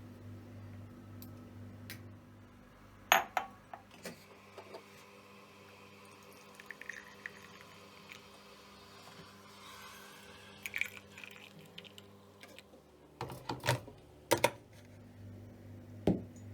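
Scattered knocks and clinks of kitchenware being handled, with a few about three seconds in and a cluster near the end, over a steady low hum.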